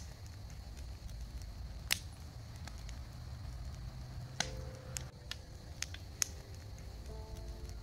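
Brush bonfire burning: irregular sharp crackles and pops, a second or so apart, over a low steady rumble. Soft music notes come in about halfway.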